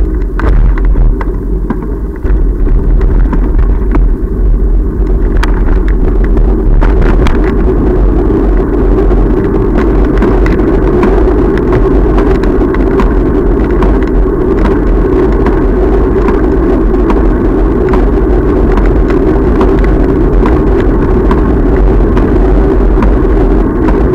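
Steady rumble of wind and road noise on the microphone of a camera carried on a moving bicycle, with light clicks and rattles scattered through it. It settles to a steady level after about two seconds.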